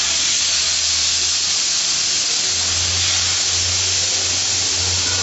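Marinated chicken skewers sizzling with a steady hiss on a preheated grill pan over high heat, with a low hum underneath that grows stronger a couple of seconds in.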